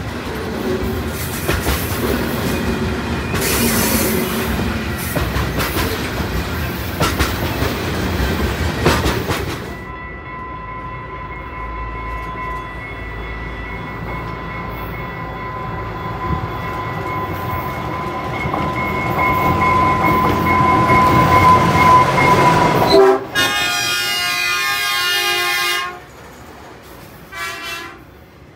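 A train passing close by, its wheels clattering over the rail joints. After about ten seconds the clatter dies away into a long, steady high-pitched tone that swells louder, then cuts off abruptly. A few seconds of train horn follow.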